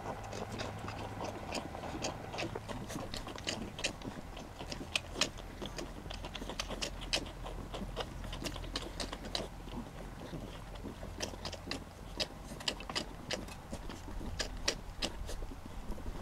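Cardigan Welsh Corgi puppies suckling from their mother, smacking: an irregular run of quick wet clicks, several a second.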